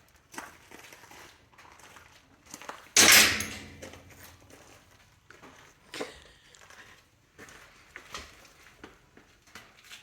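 A door on a newly hung hinge being handled, with one loud bump about three seconds in that dies away over about a second, and a few lighter knocks before and after it.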